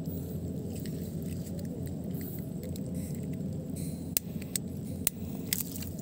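A lighter held to the fuse of a homemade whistle bomb until the fuse catches: sharp clicks and crackles, with a hiss from about four seconds in, over a steady low rumble.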